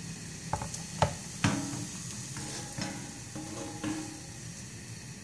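Crêpe batter sizzling in a hot buttered pan as it is poured in and swirled around. A few light knocks and clinks of the pan and bowl come in the first four seconds.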